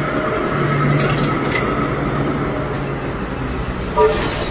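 GEMAC CDC-16III track tamping machine rolling along the rails, its engine running with a steady drone over a hiss of machinery and rail noise. A short tone sounds about four seconds in.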